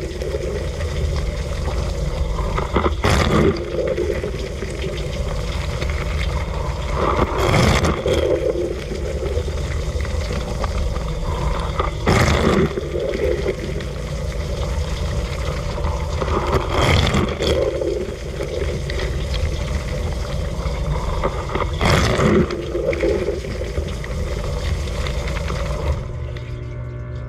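Dishwasher running its wash cycle, heard from inside the tub: water spraying and splashing over a steady pump hum, with a louder surge of spray about every five seconds as the rotating spray arm sweeps past. Near the end the spray cuts out, leaving a steady hum.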